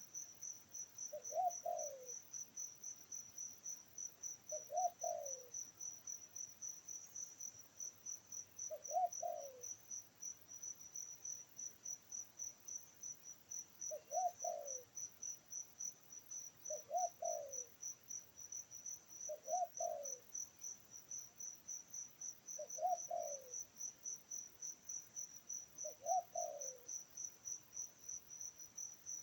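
A bird gives a short, falling call phrase eight times, three to five seconds apart, over a steady, rapidly pulsing high-pitched insect trill.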